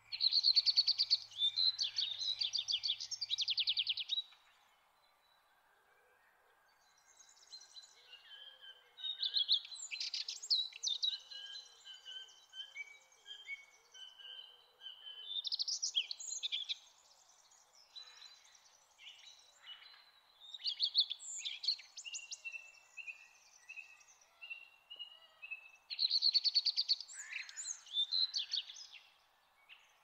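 Woodland songbirds singing: loud bursts of rapid, high trilled song come again every five seconds or so, with softer chirps and short whistled notes between them. A faint steady hiss of background noise runs underneath.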